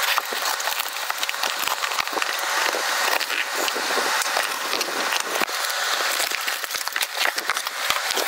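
Packing tape ripping and cardboard crackling and rustling as a taped shipping carton is torn open by hand, with many sharp crunches and clicks throughout.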